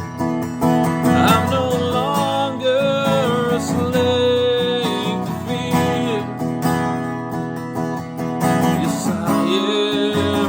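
Acoustic guitar strummed as accompaniment to a slow worship song, with a held, gliding melody line above it and no words sung.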